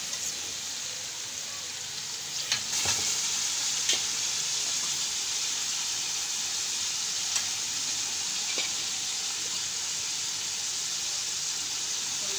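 Fried onion-and-spice masala sizzling steadily in a metal pan as boiled beef pieces are added and stirred in. The sizzle gets louder about two and a half seconds in, with a few sharp clicks of a metal spoon and ladle against the pan.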